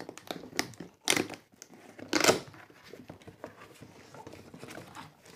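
Clear packing tape being ripped off a cardboard box in two short, loud rasps, about a second and two seconds in, with small clicks and rustles of cardboard being handled.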